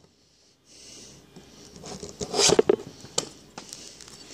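Damascus steel knife blade slicing thin slivers from the edge of a phone book: soft papery scrapes, the loudest strokes about two and a half seconds in, with a few small clicks after.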